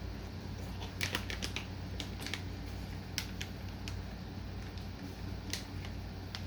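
Scattered sharp clicks and crinkles of a soft-plastic lure's plastic packaging being handled, in small clusters, over a steady low hum.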